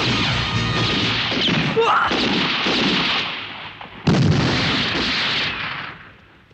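Film battle soundtrack: gunfire and explosions mixed with men's shouts and cries. A sudden loud blast comes about four seconds in, and the sound fades down near the end.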